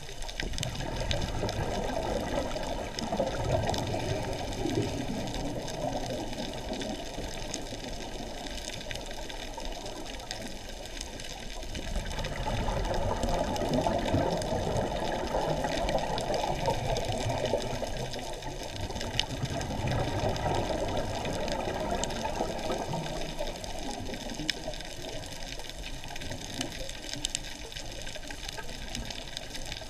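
Steady rushing, water-like noise that swells and fades in slow waves, louder in the middle stretch and quieter near the end.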